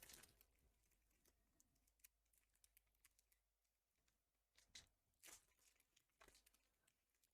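Near silence, broken by a few faint crinkles and clicks of Pokémon booster pack foil wrappers being handled, a little stronger past halfway.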